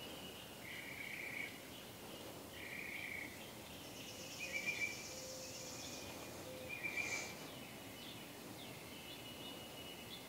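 Faint outdoor ambience: birds calling in short repeated phrases every second or two, and an insect trilling for about two seconds near the middle.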